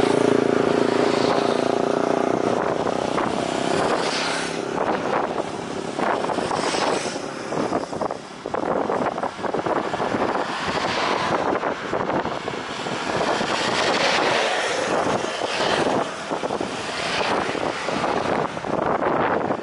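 Jet airliner engine noise around the runway, mixed with gusty wind buffeting the microphone; a steady hum in the first couple of seconds gives way to uneven, surging noise.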